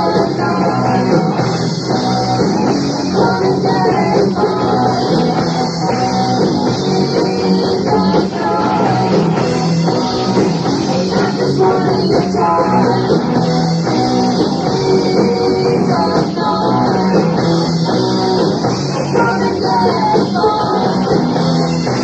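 Hard rock band playing live, with loud distorted electric guitars, bass and drum kit, and a woman singing over them.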